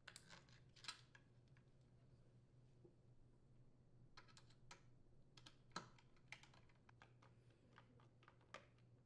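Faint, irregular clicks and taps of the plastic blade-and-handle assembly being fitted onto a Ryobi hedge trimmer's engine housing and a screwdriver working its mounting screws: a few in the first second, a cluster from about four to six and a half seconds in, and one more near the end.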